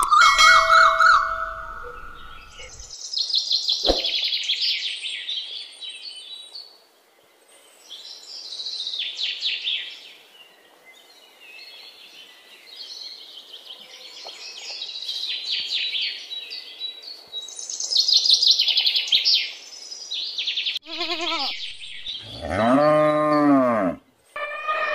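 Small birds chirping and twittering in repeated bursts, with a long cow moo near the end.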